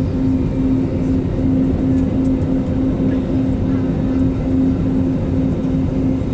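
Steady engine and airflow drone inside an airplane cabin in flight, with a low hum that pulses about four times a second.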